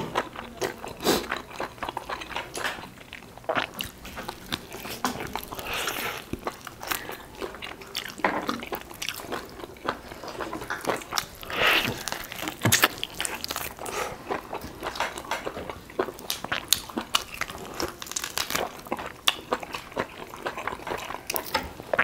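Close-up eating sounds of roasted duck gnawed off the bone by hand: irregular crunching, chewing and small wet clicks and smacks throughout.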